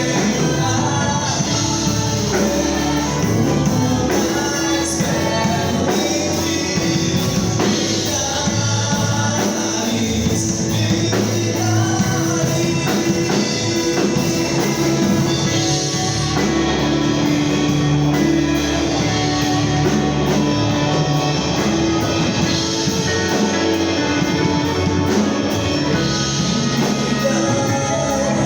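Live gospel worship band playing a song with singing, electric guitar and drum kit.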